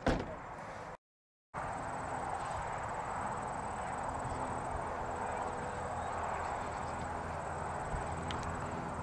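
A large outdoor crowd talking in the distance, a steady murmur of many voices. It opens with a brief thump, and there is a moment of complete silence about a second in.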